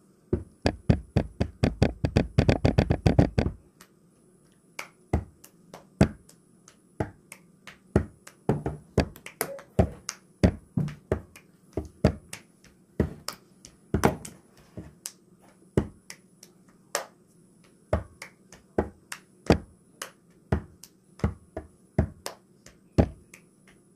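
Syrup squirted from plastic squeeze bottles onto ice cream: a fast sputtering run of clicks for the first three and a half seconds, then sharp, irregular clicks and taps about once or twice a second.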